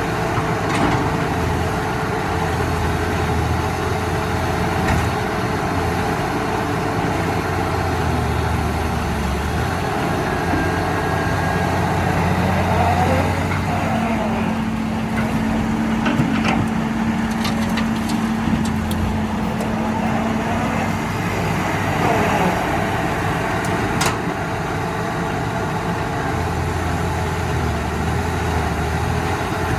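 Heavy earth-moving machinery's diesel engines running steadily. A steadier, higher hum joins for several seconds about halfway through, and there are a few brief sharp clicks after it.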